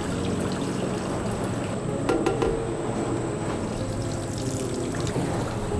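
Liquid dye poured from a metal pitcher into the metal feed funnel of a leather-dyeing drum, splashing and trickling, over the drum's steady machine hum. A few light clicks about two seconds in.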